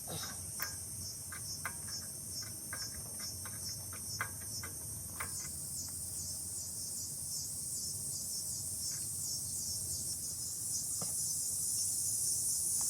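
Insects chirping in a steady, high-pitched pulsing drone, with scattered light clicks and taps of small pump parts being handled and taken apart.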